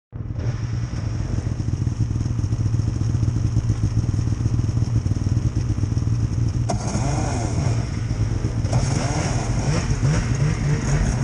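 Snowmobile engines idling steadily, among them a Polaris Switchback Assault 800's two-stroke 800. A sharp click comes about seven seconds in, and the pitch wavers and rises briefly several times near the end.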